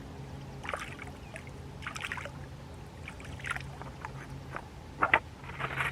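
Lake water splashing and dribbling in short bursts, about every second and a half, over a faint steady low hum.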